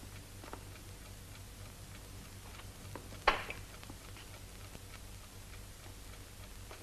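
Faint ticking of a clock over a low steady hum, with one sharp, much louder click about three seconds in.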